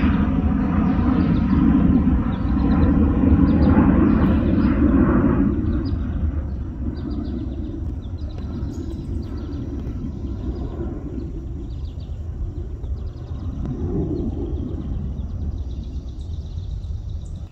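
Jet airliner flying overhead, a steady rumble that is loudest for the first five seconds or so and then fades off. Small bird chirps sound now and then.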